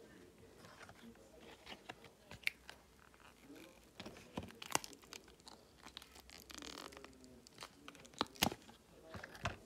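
Silicone mold being flexed and a cured resin cat-paw piece peeled out of it: a run of small crackling clicks and soft peeling sounds, with a longer scratchy peel about seven seconds in and a few sharper clicks near the end.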